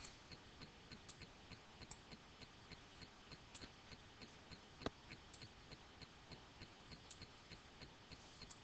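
Near silence, with faint, regular ticking about three times a second and one sharper click about five seconds in.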